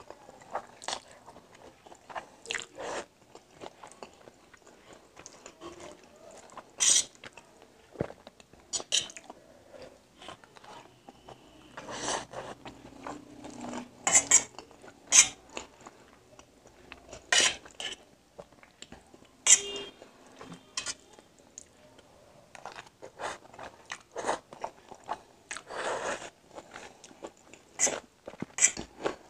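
Close-up eating of egg noodles: chewing and mouth sounds, with a metal fork clinking and scraping on a stainless steel plate in short, irregular strokes.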